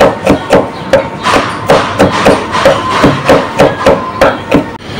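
A cleaver chopping steadily on a thick wooden chopping block, about three strokes a second.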